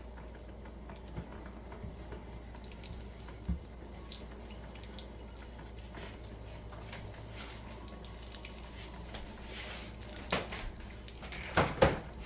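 Cuisinart drip coffee maker brewing, a steady low hiss with faint dripping and clicks as hot water is pumped up through the heater and drips into the pot. A few louder knocks come near the end.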